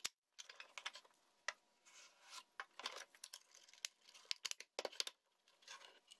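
Wood-on-wood handling: irregular light clicks, taps and scrapes as a European beech cheek is test-fitted into a pocket in a Bubinga plane body, then the block is lifted off the bench near the end.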